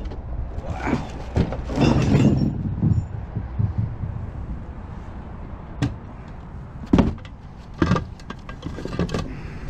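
Knocks and clunks of gear being handled in a pickup truck's bed: a cluster of knocks about two seconds in, then single sharp knocks three more times later on, over a steady low background rumble.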